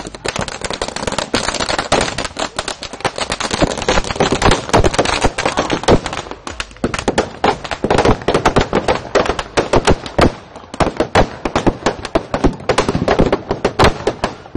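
Firecrackers bursting in rapid, crackling succession, a dense string of sharp bangs. The crackle eases briefly about six and ten seconds in, then picks up again.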